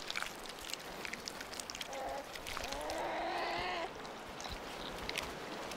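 Grizzly bear crunching clam shells and scraping wet sand, a run of small crunches and clicks. A short call about two seconds in leads into a wavering, bleat-like animal call lasting about a second.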